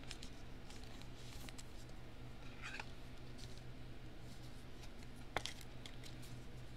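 Faint scrapes and clicks of a trading card being handled and slid into a rigid plastic toploader, with one sharper click about five seconds in, over a steady low hum.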